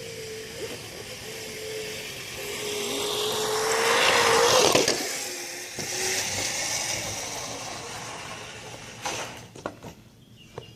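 Electric scooter running, its motor giving a steady whine under a rushing noise that swells to a peak about four to five seconds in and then fades. A few sharp clicks or steps come near the end.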